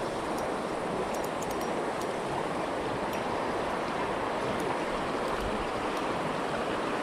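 Creek water running over a shallow riffle: a steady, even rush, with a few faint high ticks a second or so in.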